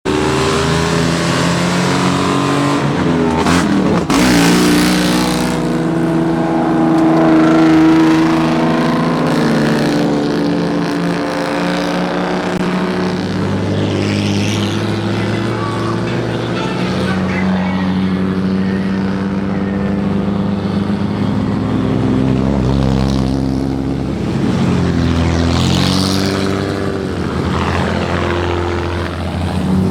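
Engines of modified old Japanese cars running and revving as they drive in one after another, the engine note changing every few seconds as each car goes by.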